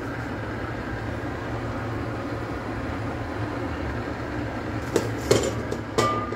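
Steady low rumble from the stove, then a few sharp metallic knocks about five and six seconds in, one of them ringing briefly, as the steel wok of heating oil is tilted and swirled on the gas burner's grate.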